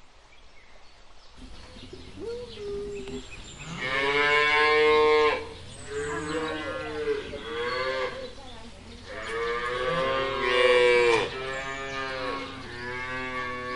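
Cows mooing repeatedly: a run of drawn-out moos of varying length, the two longest and loudest about four and ten seconds in.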